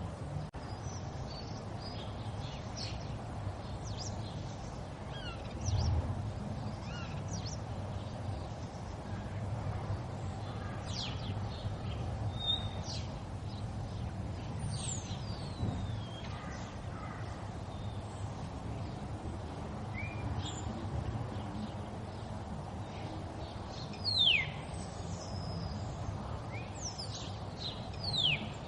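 River water flowing steadily, with birds calling over it in short, sharp descending chirps, the loudest about two-thirds of the way through and again near the end.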